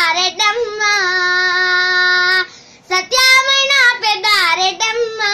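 A young boy singing solo without accompaniment, in a Telugu folk-lament style: a long held note, a short breath, then quick ornamented turns that settle into another long held note near the end.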